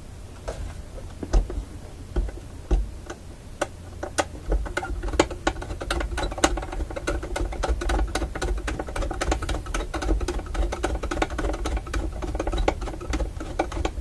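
Screwdriver working at a record changer's mounting screw: rapid, irregular clicking and scraping of metal that gets busier and louder about four seconds in.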